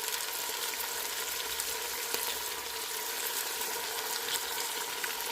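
Tempura chicken pieces frying in vegetable oil in a skillet, sizzling steadily with fine crackles.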